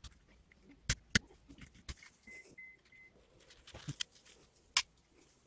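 Hard plastic clicking and snapping as car air vent louver slats are pressed into their clips in the vent housing. It comes as a series of sharp clicks, the two loudest about a second in.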